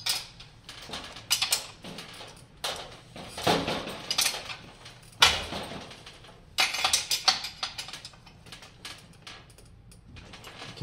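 Metal clicks and clinks of a combination wrench working the kickstand nut on an electric balance bike's rear axle as it is tightened, coming in several short, irregular clusters.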